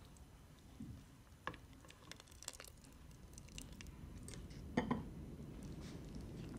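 A ladle scraping and clinking against a steel soup pot and a bowl as seafood soup and shrimp are served, with scattered light knocks and a louder double knock about five seconds in.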